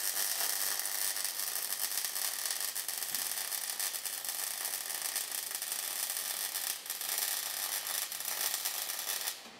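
Wire-feed welding arc laying a bead on steel box-section tubing: a steady crackling sizzle that cuts off abruptly near the end as the trigger is released.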